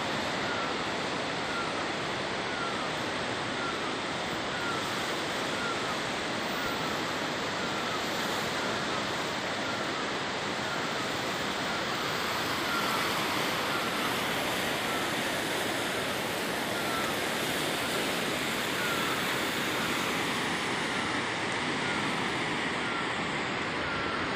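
Mountain river rushing over rocks: a steady, unbroken rush of water. Over it a faint short falling chirp repeats a little more than once a second.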